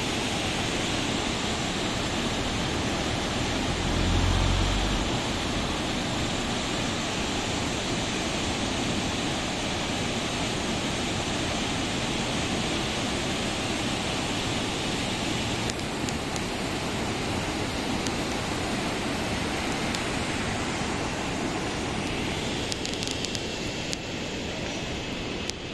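Fast mountain river rushing over boulders and through rapids: a steady, even rush of water. A brief low rumble about four seconds in.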